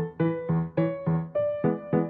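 Background music: a keyboard melody of short struck notes, about three a second, each quickly fading.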